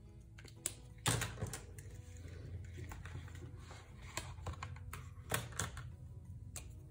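Scattered light clicks and taps as a marker is set down on a tabletop and a clear plastic ruler is picked up and laid on a notebook's pages; the loudest tap comes about a second in.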